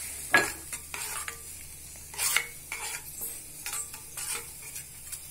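A spoon stirring and scraping thick green gram dal gravy in a stainless steel kadai, with clinks of metal on the pan every second or so over a faint sizzle.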